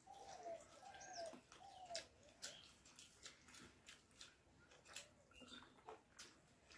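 Faint eating sounds: mouths chewing and smacking, and fingers mixing rice and mutton curry on steel plates, heard as scattered soft clicks.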